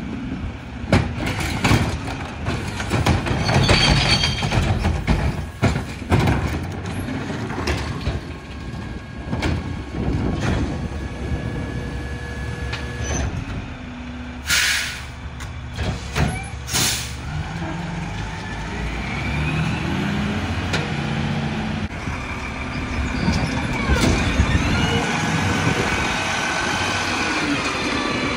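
Mack LR rear-loader garbage truck at work: plastic recycling carts bang and clatter as they are tipped into the hopper. About halfway through come two short air-brake hisses, then the truck's engine runs and revs up with rising pitch as it pulls ahead.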